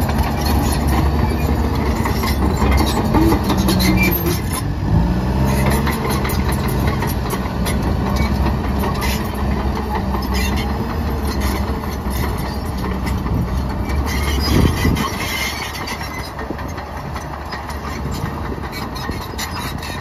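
New Holland D95B XLT hydrostatic crawler dozer's diesel engine working under load as it pushes rock, with the steel tracks clanking. The engine note sags and recovers about five seconds in, and the sound drops off a little after about fifteen seconds as the dozer moves away.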